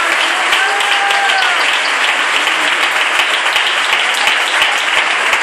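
Audience applauding steadily, dense hand-clapping, with a brief voice heard over it about a second in.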